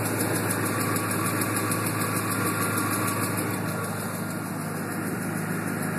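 2004 Ford F-150's 5.4-litre three-valve V8 idling steadily with a fast, regular tick. The tick is still there after a new VCT solenoid was fitted.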